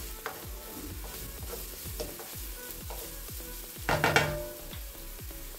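Chopped onion, green chile and garlic sizzling in olive oil in a frying pan while being stirred with a wooden spoon. About four seconds in there is a louder, brief clatter of the spoon against the pan.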